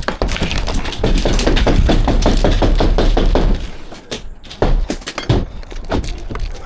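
Brittle conservatory roof panels being broken up: rapid cracking and knocking, dense for the first three and a half seconds, then a few scattered knocks.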